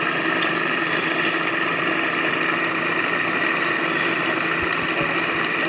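Electric monoblock water pump running steadily with a constant hum, pumping water out of a pond.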